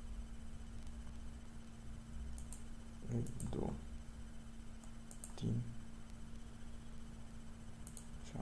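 Computer mouse clicking four times, each a quick press-and-release pair, as faces are selected one by one. Two soft low thuds come between the clicks, over a steady low hum.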